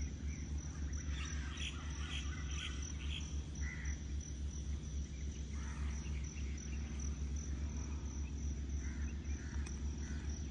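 Insects trilling steadily and birds calling, with a quick run of about five short notes a second or so in and scattered calls later, over a steady low hum.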